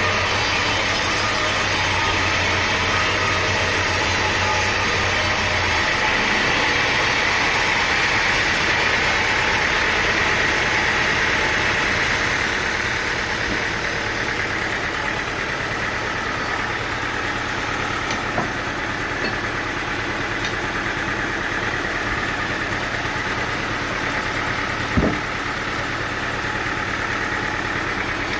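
An engine running steadily, easing off slightly about halfway through, with a single sharp knock near the end.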